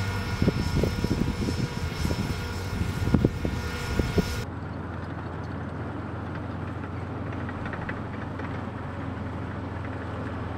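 Armoured military vehicles driving: heavy engine rumble with a steady high whine and irregular low thumps. About four seconds in it changes abruptly to the steadier low drone of a tracked armoured vehicle moving across the field.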